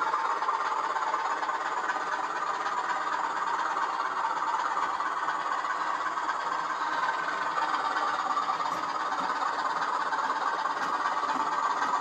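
Bachmann OO-gauge class 20 model diesel locomotive running along the track hauling wagons: a steady motor and wheel running noise that grows slightly louder as it approaches.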